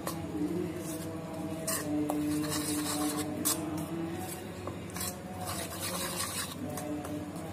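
Spoon stirring and scraping through dry gram flour (besan) and spices in a ceramic bowl: an irregular rasping scrape, several strokes a second.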